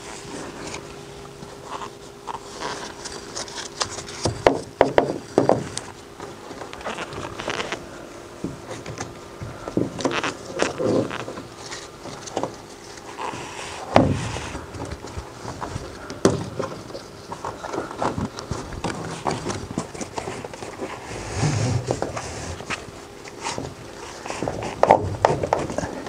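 Nylon tie-down straps being pulled, twisted and fed through a cam buckle against a canoe's hull: irregular scrapes, rustles and sharp clicks and knocks. A faint steady hum runs underneath.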